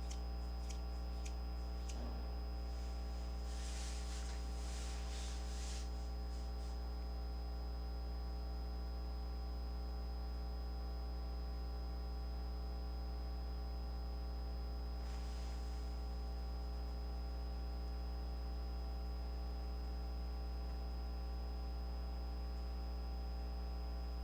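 Steady electrical mains hum with a stack of overtones and a faint high whine, with no speech. A few faint clicks come early, and short scratchy rustles come about four seconds in and again about fifteen seconds in.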